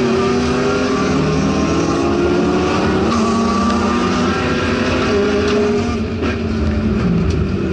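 Subaru STI race car's flat-four engine heard from inside the cabin, running under hard acceleration and rising in pitch as the car gathers speed. It eases off about six seconds in as the driver lifts for the corner.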